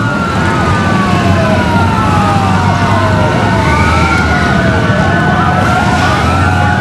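Emergency vehicle sirens wailing, several at once, their pitches rising and falling out of step with one another over a low steady rumble.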